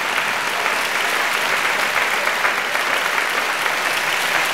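Theatre audience applauding, a dense, even clapping that holds steady.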